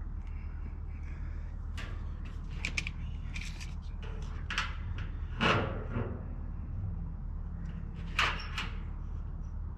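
A scattered series of knocks and clatters, the loudest about five and a half seconds in and again about eight seconds in, over a steady low hum.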